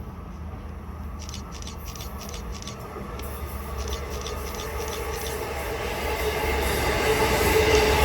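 Long Island Rail Road train approaching and growing steadily louder: a low rumble, runs of quick clicks from the wheels over the track, and a steady tone that strengthens near the end.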